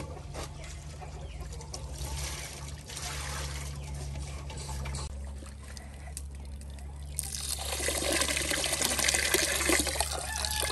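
Water splashing as rice rinse water is poured out of a metal pot, then tap water running from a PVC tap into the metal pot of rice. The running water becomes a louder, steady splash about seven seconds in.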